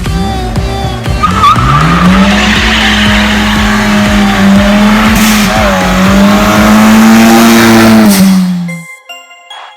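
Car engine revving up over about two seconds and holding high revs, with a loud rushing hiss over it. It stops abruptly near the end.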